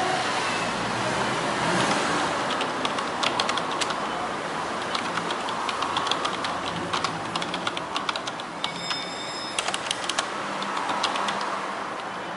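Typing on a computer keyboard: quick, irregular runs of keystrokes with short pauses, over a steady background noise.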